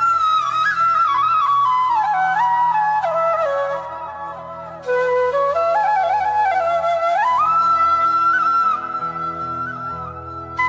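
Flute music: a slow melody of long held high notes that slide and step downward in phrases, over a steady low drone, with a brief dip in loudness just before the middle.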